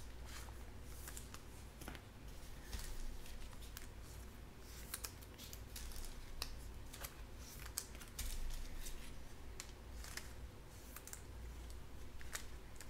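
Trading cards being handled and sorted into stacks on a tabletop: irregular light clicks, flicks and slides of card stock, over a steady low hum.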